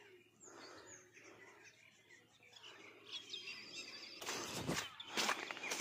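Small birds chirping faintly, then from about four seconds in, a few footsteps crunching in fresh snow, each crunch loud and short.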